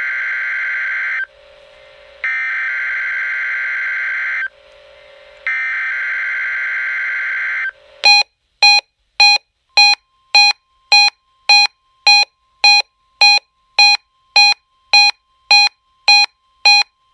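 NOAA Weather Radio Specific Area Message Encoding (SAME) header: three screechy digital data bursts of about two seconds each, with short pauses between them. Then the weather radio's warning alarm sounds as a fast string of loud beeps, about two a second, over a faint steady tone.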